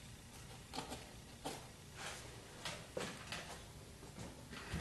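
A few faint, sharp clicks and knocks, about five over the few seconds, as tools and metal parts are handled. No power tool is running.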